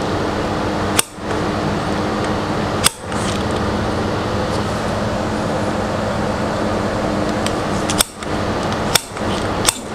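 Steady drone of shop fans and an air conditioner, with a low hum. It is broken about five times by a sharp click, each followed by a brief drop in the sound.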